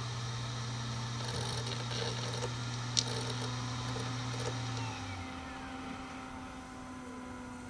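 Seagate Barracuda 7200.10 ST3250310AS hard drive running with a steady 7,200 rpm spindle hum and a few sharp head-seek clicks, the loudest about three seconds in. About five seconds in it is powered down: the hum stops and the spindle motor's whine falls steadily in pitch as the single platter spins down.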